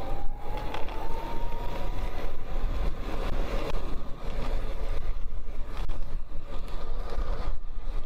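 Wind buffeting the microphone as a folding e-bike with a Bafang BBSHD mid-drive motor accelerates hard to over 20 mph. A faint whine from the motor rises in pitch during the first couple of seconds.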